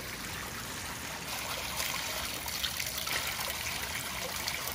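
Natural spring water fountain running into a stone trough: a steady trickle and splash of falling water.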